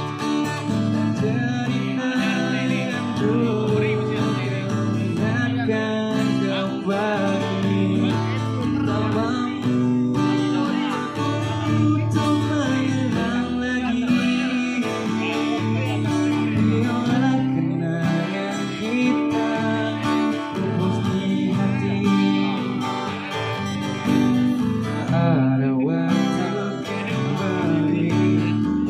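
Acoustic guitar strummed in a slow song, with a man singing through a PA system.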